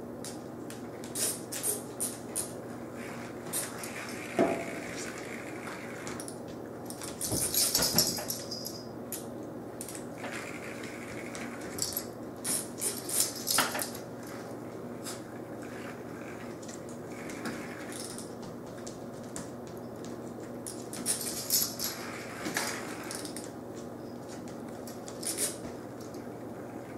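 An American cocker spaniel puppy biting and tugging at a hanging cat's string toy: scattered clicks, taps and rattles in short clusters, the loudest about eight seconds in, over a steady low hum.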